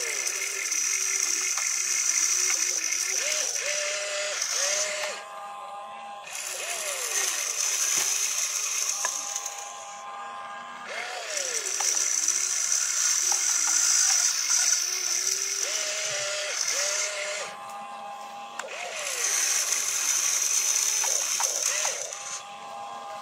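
Electric motors and plastic gear trains of an RC excavator whining and rattling as the boom, arm and bucket dig and swing. The whine rises and falls in pitch with each movement and stops briefly about every five seconds between moves.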